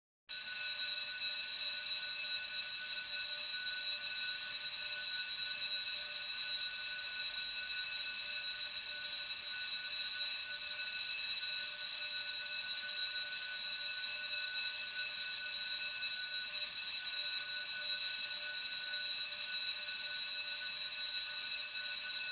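Electric school bell ringing continuously for about twenty seconds, a steady metallic ring that starts abruptly and then cuts off, leaving a brief ringing decay.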